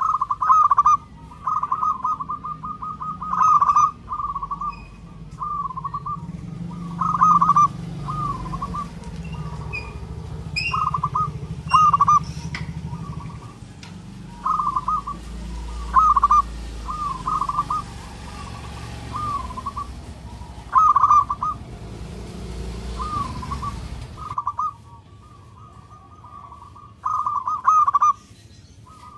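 Zebra dove cooing: a long run of short, rapid coo phrases near one pitch, repeated every second or so. A low background rumble sits under much of it and cuts off suddenly near the end.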